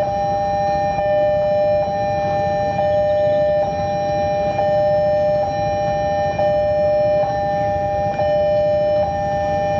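Railway level-crossing warning alarm sounding: two steady electronic tones at once, broken by a brief gap about once a second, warning of an approaching train.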